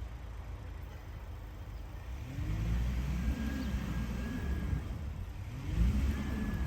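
Skoda Karoq driving: a steady low road rumble, with the engine revving up and easing off twice, about two and a half seconds in and again near the end.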